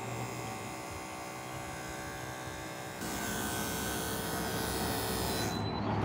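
Vacuum pump's electric motor running steadily as it evacuates the refrigerant recovery hoses. About halfway through, it gets louder and a rushing noise joins it. The rushing stops sharply near the end.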